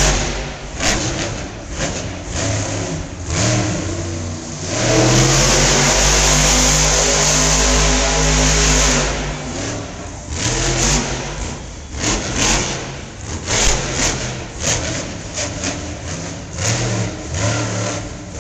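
Monster truck's supercharged V8 revving hard in bursts, with one long sustained full-throttle run from about five to nine seconds in.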